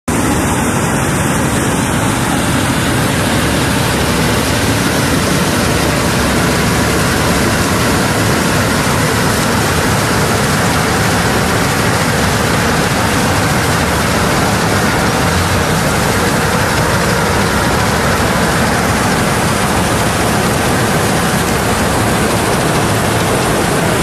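Combine harvester running steadily, its engine and machinery making a loud, even noise that does not change.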